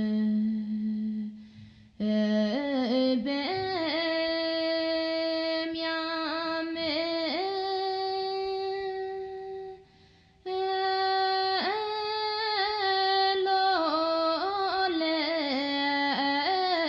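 A song sung by a single voice, holding long notes with ornamented turns in pitch. It breaks off briefly twice, about two seconds in and again about ten seconds in.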